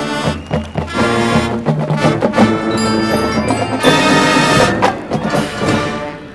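High school marching band playing: sustained brass chords over percussion strokes, fading in the last second.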